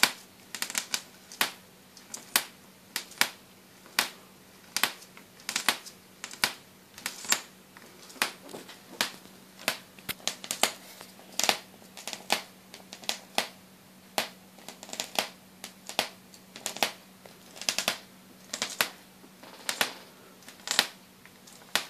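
ZVS-driven high-voltage Jacob's ladder arcing, with sharp irregular snaps about once or twice a second as the arc strikes over and over, above a steady low hum.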